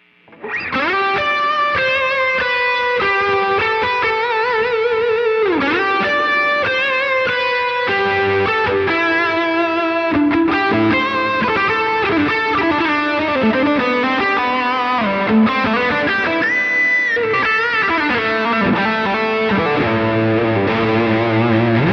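Alvarez AAT33 semi-hollow electric guitar played through a Wampler Pantheon overdrive and the AMT Pangaea CP100 impulse-response cab simulator, recorded direct, with a subtle reverb. A single-note lead melody with vibrato and string bends starts about half a second in and plays on continuously.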